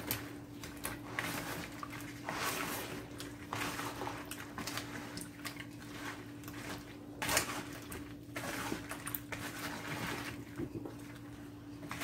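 A silicone spatula stirring sliced cucumbers and onions through a sugar-and-vinegar pickle brine in a plastic bowl: irregular wet swishing and squelching, with a faint steady hum underneath.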